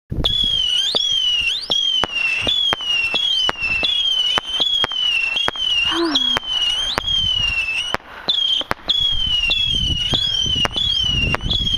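Brothers Pyrotechnics Meteor Blitz missile cake firing a rapid stream of whistling missiles. Each whistle dips slightly and then climbs sharply, overlapping the next, with sharp cracks about one to two a second. There is a brief lull about two-thirds of the way through.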